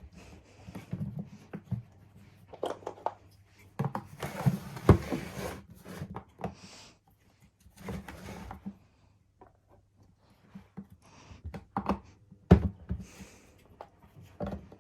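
Hard plastic clicks, knocks and scraping as castor wheels are pushed into the base of a plastic wet and dry vacuum tank, with a few sharper knocks.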